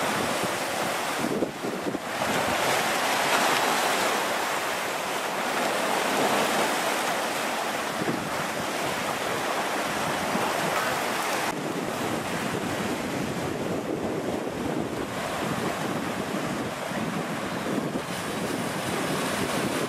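Sea surf washing and breaking over jagged shoreline rocks: a steady rushing and fizzing of foaming water that swells and eases with each wave.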